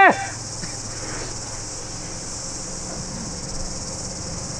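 Steady high-pitched chorus of insects, an even shrill hiss with no breaks.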